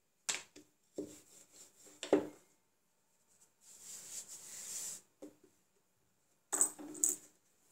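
Hands handling a thin sheet of dough on a hard countertop: a string of knocks and taps as the dough is lifted and laid down, and a soft rubbing hiss for about a second and a half in the middle as dry flour is spread over it.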